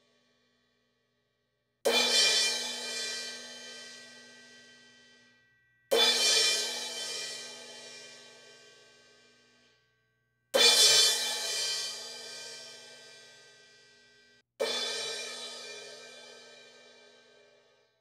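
A single cymbal struck four times, each hit sharp at the start and left to ring and fade for about four seconds before cutting off into silence; the third hit is the loudest.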